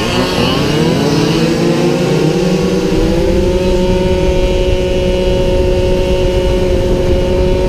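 Small 48cc racing scooter engine heard up close, revving up with a rising whine for about three seconds as it accelerates, then holding a steady high pitch at full speed.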